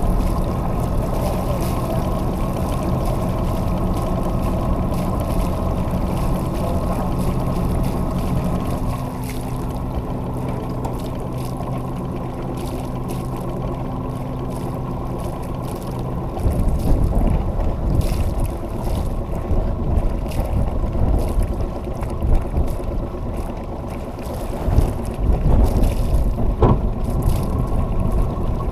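A sailboat's engine running steadily with a low drone, then stopping abruptly a little over halfway through. After that, wind gusting on the microphone and water rushing past the hull, with one sharp click near the end.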